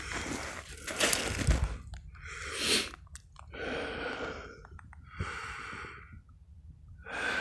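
Snowshoe footsteps crunching in snow at a walking pace, roughly one step a second, with the walker's breathing.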